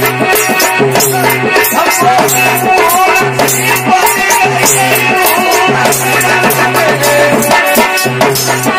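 Dhola folk music without singing: a dholak drum keeps a steady rhythm under a harmonium melody, with sharp, rattling percussion strikes on top.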